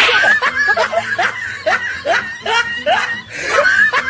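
A person laughing in a string of short chuckles, about two to three a second, each rising in pitch.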